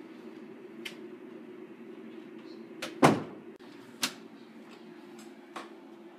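An interior panel door being opened: a few light clicks, then a heavy knock of the door about three seconds in and another sharp click a second later, over a steady low hum.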